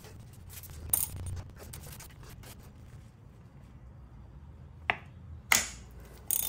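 A few sharp clicks and knocks, about a second in and three more near the end, as a ratchet and socket are forced against the stuck drain piece of a Toyota Tacoma's oil filter housing cap to break it loose.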